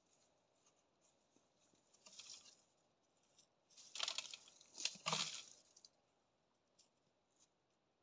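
A snow leopard feeding on a kill among dry twigs and leaf litter: faint scattered rustles, then a louder run of tearing and crackling about four to five seconds in as it pulls at the carcass.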